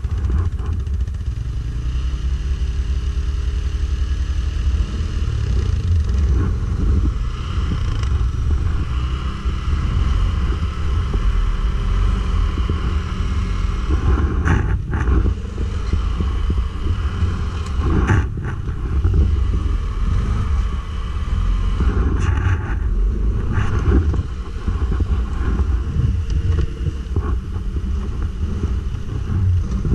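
Stels Guepard 850 ATV engine running steadily, a low rumble throughout, with a few short knocks about halfway through.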